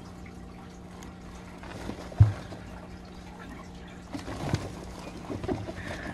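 Soft rustling of hay and fur nesting material as a hand touches nine-day-old baby rabbits and they stir, with one sharp thump about two seconds in and a few light clicks later, over a low steady hum.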